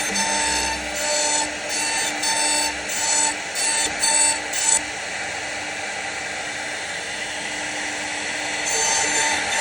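CNC router spindle cutting wood, the cutting noise swelling in short repeated strokes about twice a second for the first half, then settling into a steady whine, with the strokes returning near the end.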